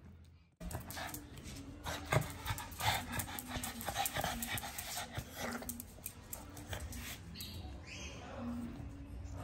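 Pug panting and giving short whines, with a rising whine near the end.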